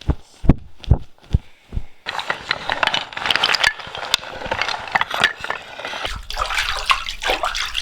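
A few low, evenly spaced thumps, then from about two seconds in a steady splashing, trickling noise of running water, joined near the end by a low hum.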